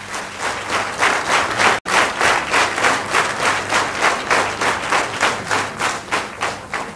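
Audience applauding at the end of a song, clapping together in a steady rhythm of about three claps a second. The sound cuts out for an instant about two seconds in.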